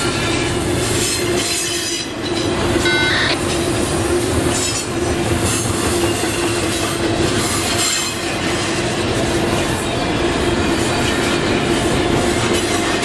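Double-stack intermodal well cars rolling past close by: a steady grinding of steel wheels on rail with scattered clicks, and a brief high wheel squeal a little after three seconds in.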